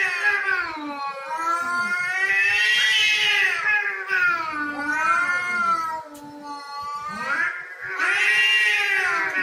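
Cats caterwauling in a territorial standoff: long, wavering yowls that rise and fall in pitch, loudest about three seconds in and again near the end, with a short lull in the middle.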